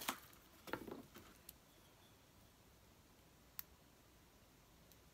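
Faint cardboard packaging scraping and rustling as a teapot is lifted out of its box, in the first second. A few soft clicks follow, one sharper about three and a half seconds in, over near silence.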